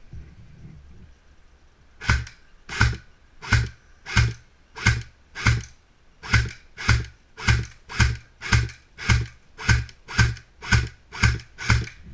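M4-style airsoft rifle firing single shots in a steady series, about seventeen sharp cracks roughly 0.6 s apart, starting about two seconds in.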